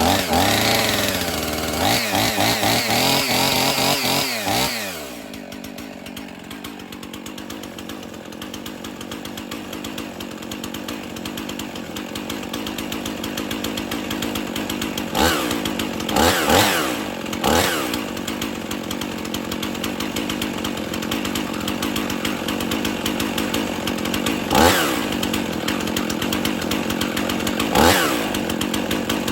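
Husqvarna 55 two-stroke chainsaw engine running fast, dropping to a steady idle about five seconds in, with five quick throttle blips later on. It idles without trouble while still cool; the owner suspects an air leak makes it cut out once hot.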